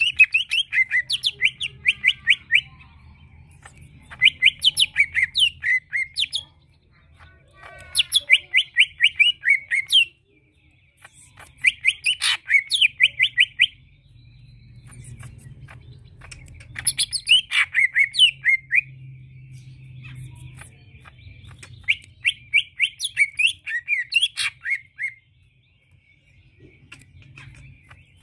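Male greater green leafbird (cucak ijo) singing in repeated bursts of rapid, sharp notes, each burst about two seconds long and coming every few seconds.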